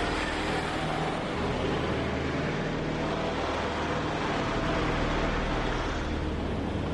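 Motor vehicle engines running steadily as vehicles drive, a continuous low hum with road noise.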